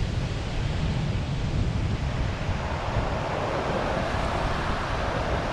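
Ocean surf breaking and washing along a beach, a steady hiss, with wind buffeting the microphone in a low rumble.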